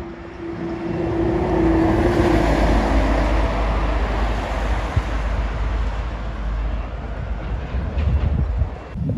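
Heavy highway traffic passing close by, a tipper truck with trailers among it: tyre and engine noise that swells about a second in and stays loud over a steady deep rumble.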